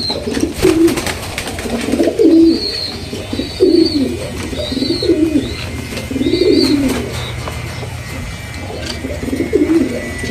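Pigeons cooing over and over in short, low phrases, with thin high chirps from another bird in between.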